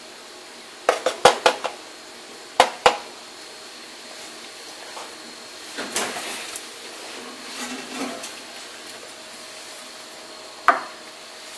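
Metal spoon clinking and scraping against a ceramic plate while spreading flour: a quick run of sharp clinks about a second in, two more near three seconds, then softer scraping through the flour, and one last clink near the end.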